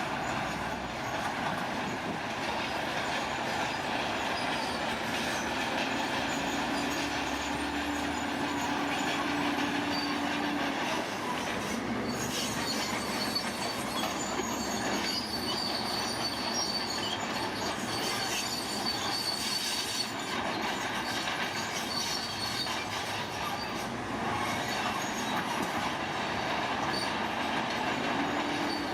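Heavy earthmoving machinery running steadily, with high metallic squealing over the engine noise.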